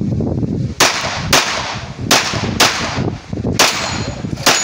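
A handgun fired six times in three quick pairs (double taps), the two shots of each pair about half a second apart.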